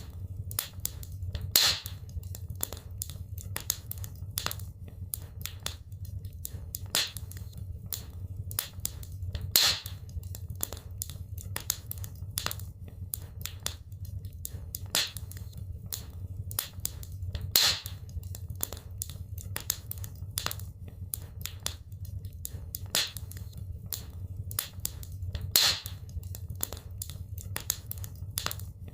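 Wood fire crackling in a fireplace: a steady run of small snaps and pops over a low rumble, with a louder pop about every eight seconds.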